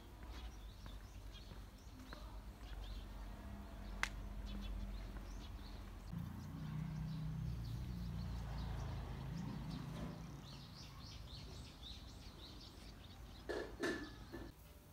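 Faint outdoor ambience: a low rumble, with birds chirping in the latter half. There is a sharp click about four seconds in and two louder knocks near the end.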